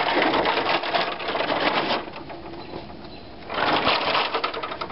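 Stepladder being handled and set up: a rapid rattling clatter from its rails and braces for about two seconds, then quieter, then a second burst of clatter about three and a half seconds in.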